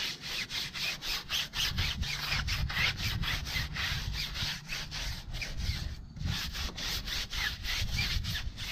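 Brush scrubbing a car tire coated in degreaser foam, in quick back-and-forth strokes about four a second, with a brief pause about six seconds in.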